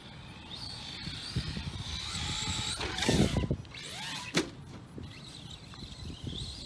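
Brushless-converted Arrma Senton RC truck's electric motor whining, rising and falling in pitch as it speeds up and slows. A loud rush of noise comes about three seconds in and a sharp knock just after four seconds.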